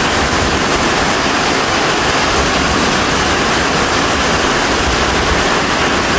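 Heavy tropical rain pouring down in a downpour: a loud, steady rushing hiss of rain with no letup.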